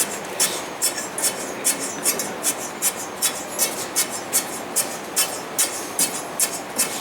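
Hand tool jabbed again and again into dry granular furnace refractory to de-air it, driving out pockets of air before compaction: a gritty rasp at each stroke, about two to three strokes a second.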